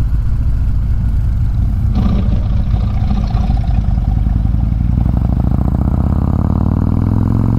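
Harley-Davidson touring motorcycle's V-twin engine running under way, with wind and road noise. Over the last few seconds it accelerates and the engine pitch rises steadily.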